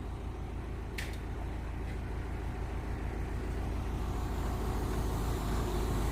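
Backhoe engine running steadily and slowly getting louder, with a single short click about a second in.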